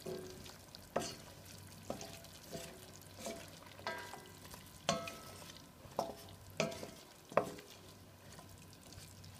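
Wooden spatula stirring chicken and sliced carrots in a metal wok, knocking and scraping against the pan about once a second over a faint sizzle of the simmering sauce.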